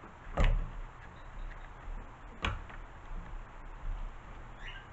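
Pliers crimping a lump of lead ballast: two sharp clicks about two seconds apart, the first the louder, with small handling knocks between.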